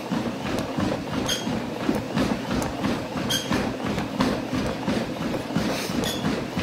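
Footsteps on a running treadmill in a quick, steady rhythm of about three a second, over the hum of the belt and motor. A short high squeak comes three times, about two seconds apart.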